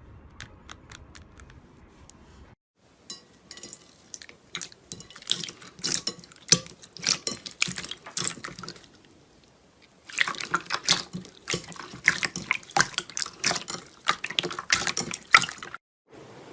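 Slime being squeezed and worked by hand, giving dense runs of wet clicking and popping, with a brief pause about halfway through.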